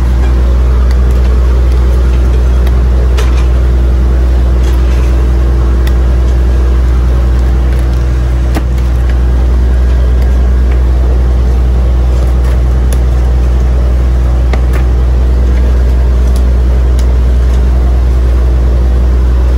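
Boat engine running steadily, a deep, even drone with no change in speed.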